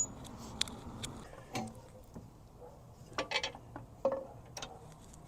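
Light metallic clicks and clinks of tools and car parts being handled during an axle install, coming irregularly, with a short cluster of ringing clinks a little past the middle.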